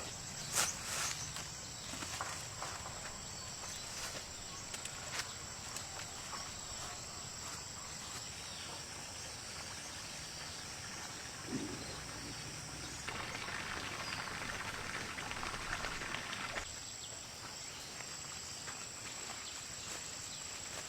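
Insects trilling steadily at a high pitch, with scattered clicks and taps in the first few seconds and a hissing noise for about three seconds past the middle.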